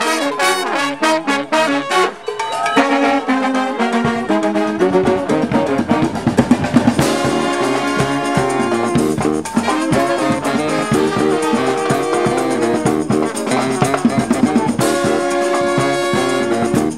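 Background music led by brass horns, with a drum and bass part coming in about four seconds in.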